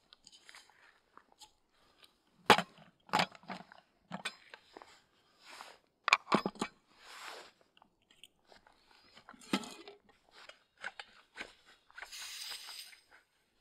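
Irregular crunches and knocks with a few short hissing scrapes. The loudest hits come about two and a half and six seconds in, and a longer rustling scrape comes near the end.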